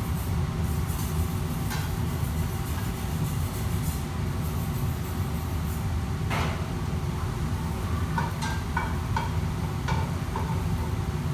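Steady low roar of a commercial kitchen wok station, its gas burner and extraction hood running, with a metal ladle clinking against the wok several times in the last few seconds.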